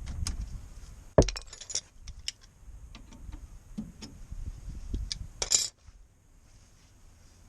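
Metal tools and parts knocking and clinking while a front hub is being stripped down: a sharp knock about a second in followed by a short ringing clatter, a second clatter later on, and scattered light clicks.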